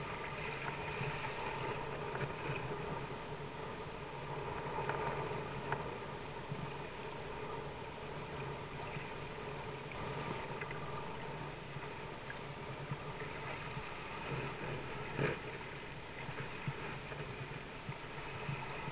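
Steady rush of wind and water as a sailing kayak moves at about 5–6 mph, with a constant hum running through it. A single sharp knock about 15 seconds in.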